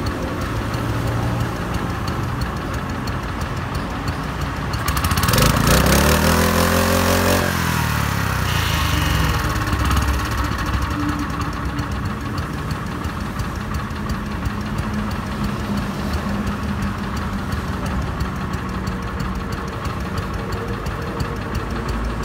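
Mitsubishi G510 small single-cylinder petrol engine running steadily at idle. Between about five and eight seconds in, a louder engine sound swells, rises in pitch and falls away.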